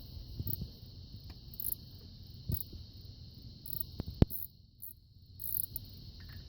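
Scattered light clicks and knocks of metal tools and engine parts being handled, with one sharp click about four seconds in, over a steady high-pitched hiss.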